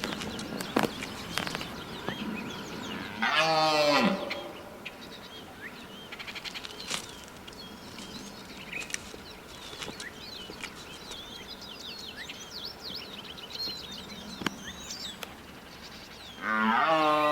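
A cow mooing once, a loud call about three seconds in that falls in pitch at its end. Faint high chirps follow, and near the end another loud drawn-out animal call begins.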